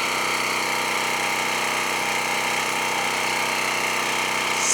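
Champion 4000-series portable generator running steadily, heard from about 15 feet: a constant loud engine drone with a hissing exhaust and fan noise.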